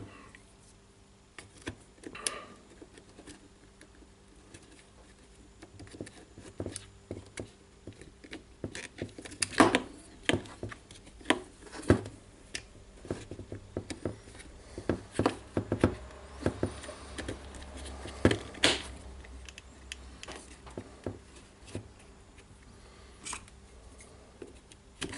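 Irregular light clicks and knocks of small parts being handled and fitted into a power-tool housing, as an impact driver's armature, field and gears are reassembled.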